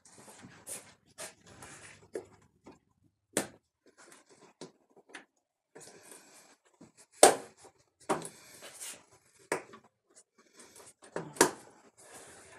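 Ford Maverick's plastic windshield cowl being worked by hand at its corner: scattered plastic clicks and light scraping, with three sharper clicks, the loudest about halfway through.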